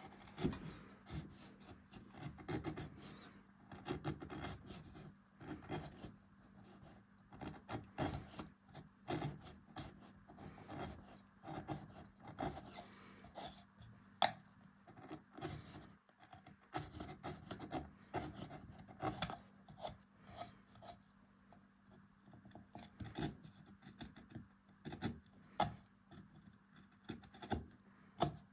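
Hand carving tools scraping and cutting beech wood in quick, irregular short strokes as a relief is carved into a turned cup.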